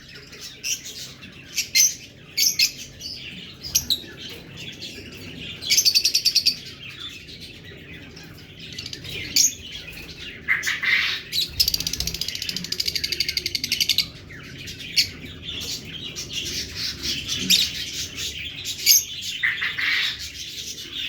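Fischer's lovebirds chirping and chattering with sharp high chirps, a rapid buzzy trill about six seconds in and a longer one from about twelve to fourteen seconds.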